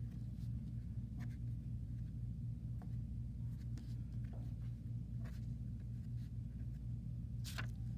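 Oil pastel stick dabbing and scraping on paper in short, scattered strokes, one stronger near the end, over a steady low background hum.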